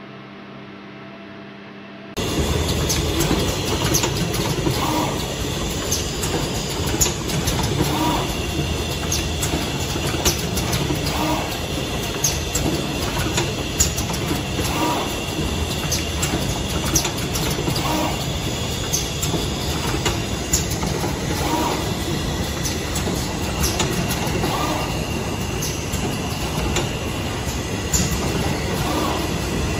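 Automatic solar cell stringer machine running: dense mechanical clatter with frequent sharp clicks and a cycle that recurs about every three seconds. It starts abruptly about two seconds in, after a low electrical hum.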